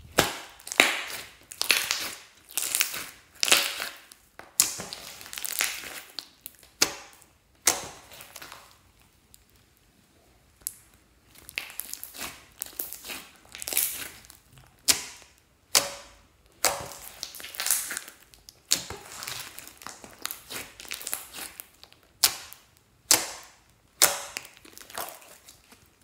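Large glossy slime being stretched, pressed and folded by hand, giving sticky, wet noises in repeated short bursts about once a second, each starting sharply and fading, with a pause of about two seconds near the middle.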